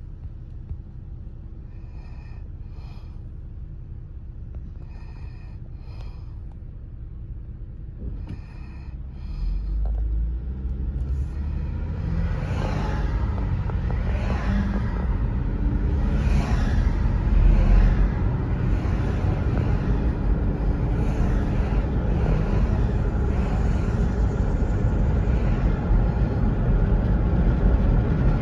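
Car cabin sound heard from inside: quiet at first with a few faint paired clicks while the car sits in traffic. About ten seconds in, the engine and tyre rumble rises as the car pulls away and picks up speed, and it settles into steady road noise.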